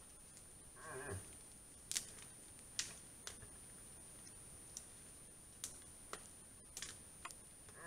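A moose gives one short, faint moaning call about a second in, falling in pitch: the rutting call of the Eurasian moose. Scattered sharp clicks follow at uneven intervals.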